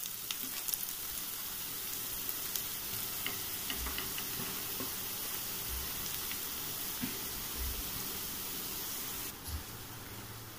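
Freshly grated coconut sizzling in hot ghee in a kadai, a steady frying hiss with a few light ticks. The sizzle drops a little near the end.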